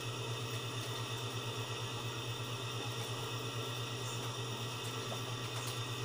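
Steady low hum of a running cooling fan, with a fast even flutter.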